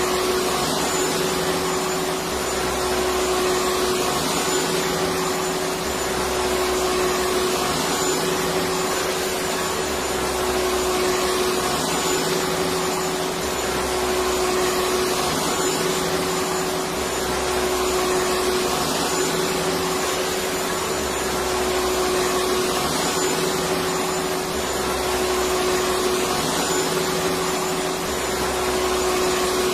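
Electric vacuum cleaner running steadily: a constant rush of air with a steady whine, and a low hum that swells and fades every couple of seconds.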